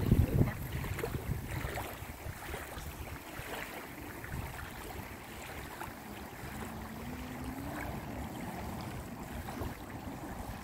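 Wind rumbling on the microphone, loudest in a gust at the start, over small waves lapping against a stony lake shore.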